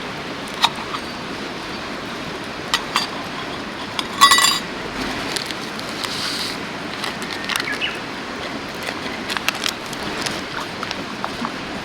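Scattered clicks and clinks of small hard objects being handled, with one louder ringing clink about four seconds in, over the steady rush of a mountain stream.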